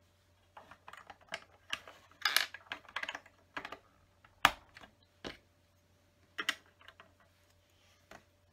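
Plastic LEGO bricks being handled and pressed onto a model on a tabletop: a run of irregular sharp clicks and taps, the loudest about four and a half seconds in.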